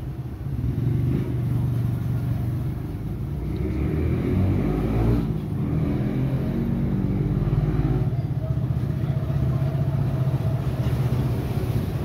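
A motor vehicle engine running steadily, its pitch rising briefly about four to five seconds in.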